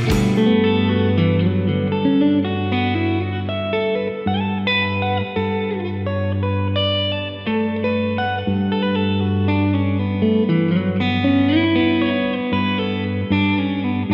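Electric guitar, a Stratocaster-style with a capo, playing a clean, compressed melodic part with lots of reverb, its notes ringing into each other over a held low note.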